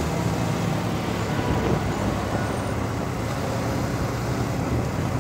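Off-road motorcycle's engine running at an even pace while riding along a city road, with surrounding road traffic.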